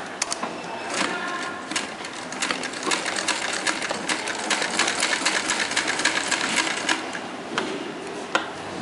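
Sewing machine stitching fabric: a fast, steady run of needle clicks from about two seconds in to about seven seconds, with a few single clicks before and after.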